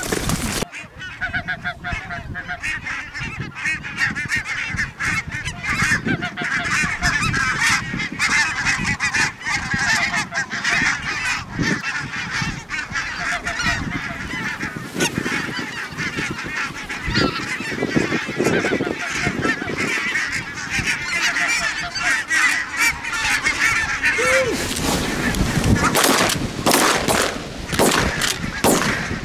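A large flock of barnacle geese calling as it flies in: a dense, unbroken chorus of many overlapping calls, growing louder near the end.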